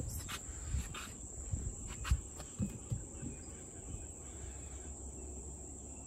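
Insects droning steadily at one high pitch in the surrounding vegetation, with a few soft knocks in the first three seconds.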